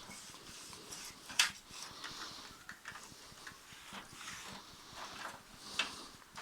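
Light plastic clicks and rustling from handling a laser printer's toner cartridge and drum unit, with a sharper click about a second and a half in and another near the end.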